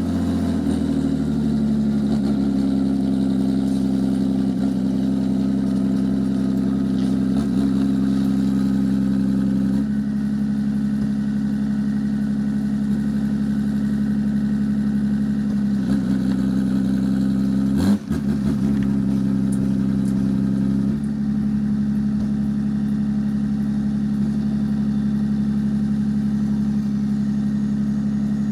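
A motor engine running steadily at a constant speed. Its pitch steps slightly about ten seconds in and again about twenty seconds in, with a short sharp break just before the second change.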